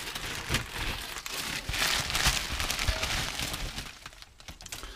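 Bubble wrap and plastic packaging crinkling and rustling as a bubble-wrapped RC transmitter is handled and lifted out of its cardboard box, dying down about four seconds in.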